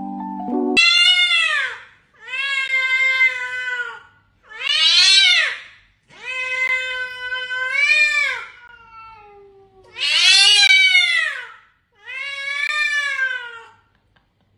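A cat meowing loudly and repeatedly: six long, drawn-out meows about two seconds apart, each rising and then falling in pitch.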